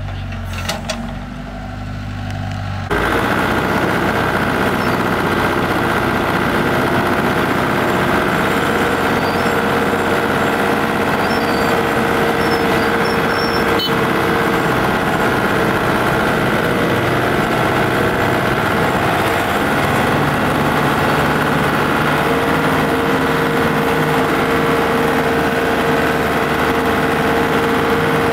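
Vehicle engine running steadily. About three seconds in, the sound jumps abruptly to a louder, denser running noise with steady tones.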